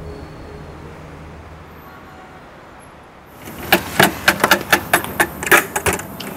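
A faint low hum for about three seconds, then a quick, irregular run of about a dozen sharp clicks and taps.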